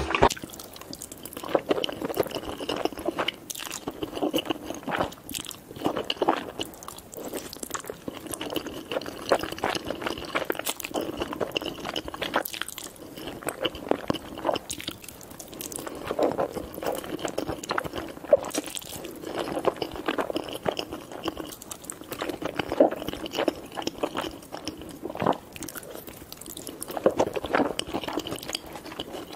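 Close-miked eating of jjajangmyeon, black bean sauce noodles: slurping noodles and chewing, with crunchy bites in clusters every few seconds.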